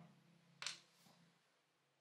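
A small metal screw landing on a wooden workbench: one sharp tap a little over half a second in and a fainter tap after it, then near silence.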